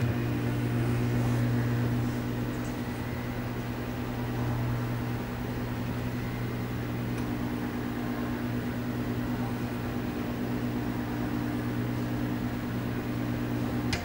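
Motorized TV lift's electric motor driving the lift column upward, a steady low hum that cuts off suddenly at the end of the travel.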